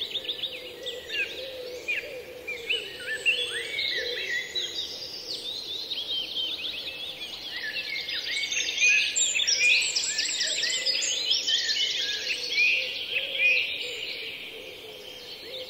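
A chorus of many songbirds singing at once, with overlapping chirps, whistles and quick trills layered densely. It is busiest a little past the middle.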